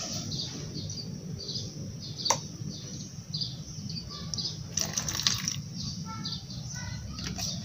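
Small birds chirping again and again over a steady low hum, with a single click a little past two seconds in and a short noisy burst about five seconds in.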